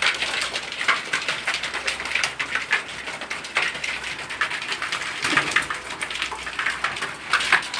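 A flock of pigeons pecking grain off flattened cardboard: a dense, irregular patter of quick taps.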